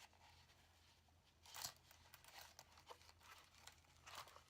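Near silence, broken by a few faint rustles and scrapes about a second and a half, three and four seconds in: steel handcuffs being handled and pushed into a tight handcuff case.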